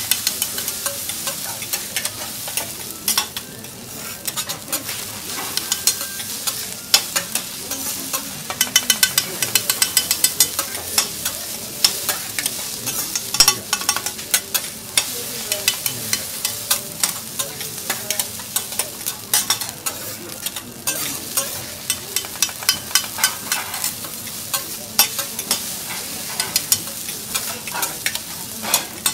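Metal teppanyaki spatulas chopping and scraping fried rice on a hot steel griddle: rapid runs of sharp steel-on-steel taps over a steady sizzle.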